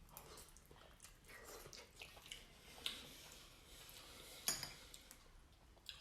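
Soft eating sounds: a fork clicking against a plate of spaghetti Alfredo a few times, the sharpest clicks about three and four and a half seconds in, with faint mouth noises between.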